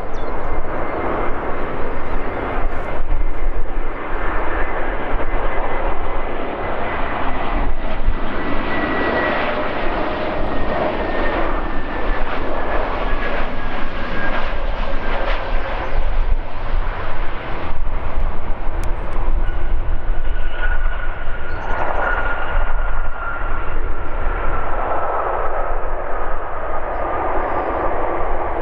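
Lufthansa Airbus A320neo's Pratt & Whitney PW1100G geared turbofan engines running through the landing: a steady rumble with a high fan whine that slowly falls in pitch. About twenty seconds in, a second whine joins and also falls as the aircraft rolls out down the runway.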